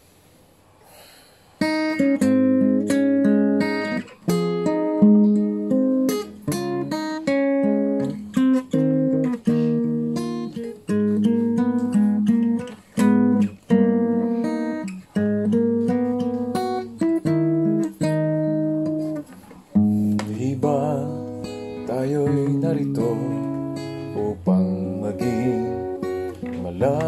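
Solo acoustic guitar playing a song's introduction, with picked chords and single-note melody lines that ring on. It starts about a second and a half in.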